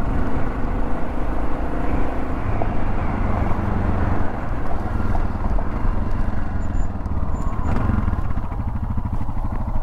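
1996 Yamaha XT600E's single-cylinder four-stroke engine running as the motorcycle is ridden along, its pitch shifting a little with the throttle.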